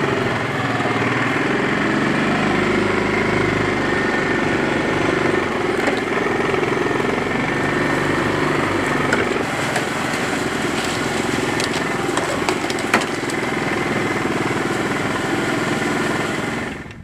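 ATV engine running steadily as it drives across rough field ground, with a few sharp rattles and knocks from the load on the rack about halfway through. The sound cuts off abruptly just before the end.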